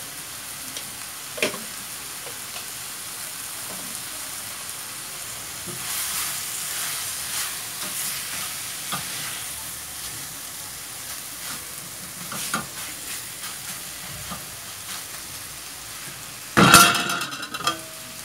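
Chicken and onions sizzling in a metal frying pan while a spatula stirs them, with scattered scraping and tapping against the pan. Near the end comes a loud metallic clatter on the pan.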